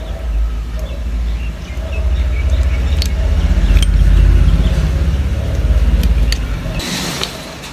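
Handling of the tripod's packaging as it is opened and the tripod taken out: light clicks, then a short rustle near the end, over a low steady rumble that stops about seven seconds in.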